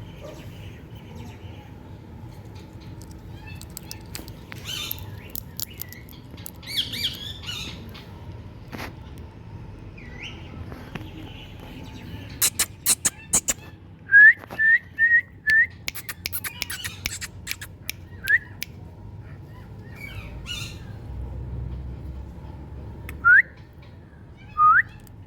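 Indian ringneck parakeet giving short, sharp, rising calls: four in quick succession about halfway through, one more a few seconds later and two near the end, with softer chatter earlier. A run of sharp clicks comes just before the first loud calls.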